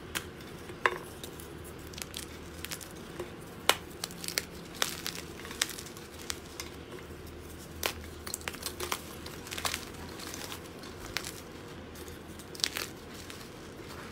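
Slime being squeezed and stretched by hand, giving irregular crackles and sharp clicks over a steady low background hum.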